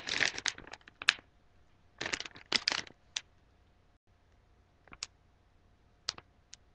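Plastic candy bag crinkling as it is handled, with two bursts of rustling in the first three seconds, then a few light crackles.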